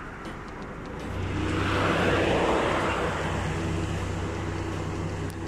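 A motor vehicle engine runs with a steady low hum from about a second in. A swell of engine noise builds and eases, loudest about two and a half seconds in.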